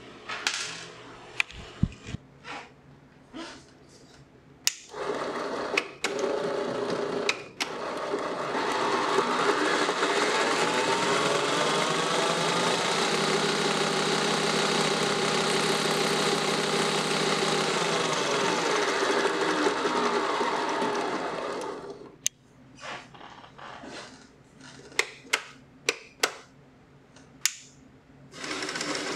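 3D-printed band saw's motor and blade spinning up, running steadily for about thirteen seconds, then winding down, the pitch rising at the start and falling at the end. Before and after it, scattered clicks and knocks of the machine being handled and adjusted.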